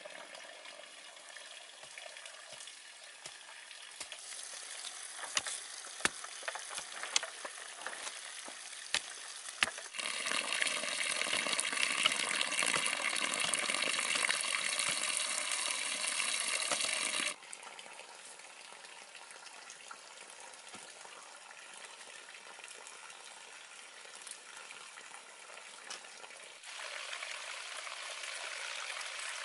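Running water splashing and trickling. There are a few sharp knocks in the first third, and the water is much louder for about seven seconds in the middle, starting and stopping suddenly.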